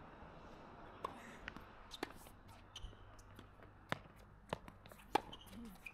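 Tennis ball bounced on a hard court: sharp, short knocks, a few scattered ones and then three evenly spaced about half a second apart in the second half, as a player bounces the ball before serving.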